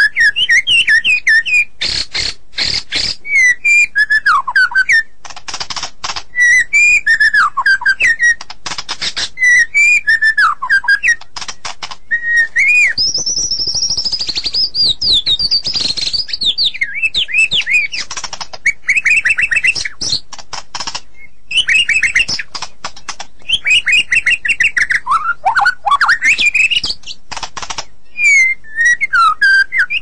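White-rumped shama (murai batu) in full song: loud, varied whistled phrases that glide up and down, broken by rapid dry clicking rattles. About halfway through comes a longer, higher warbling phrase.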